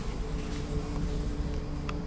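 Steady low rumble and hum of an ED4M electric train, heard inside the passenger carriage, with a small click near the end.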